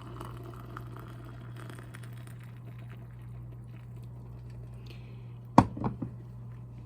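Water boiling in a Hamilton Beach electric kettle, a steady hiss that eases off, then a sharp click about five and a half seconds in: the kettle's automatic shut-off tripping at the boil.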